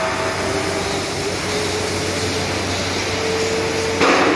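Steady hiss and hum of a steel fabrication workshop, with a few faint held tones over the noise. A sudden louder burst of noise comes in near the end.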